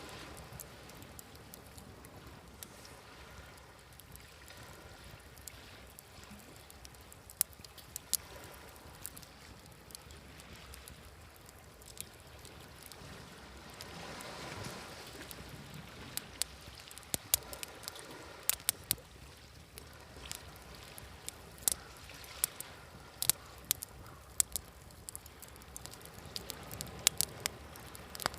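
Wood fire crackling with sharp pops, more frequent in the second half, over a steady wash of sea waves; a wave swells up and recedes about halfway through.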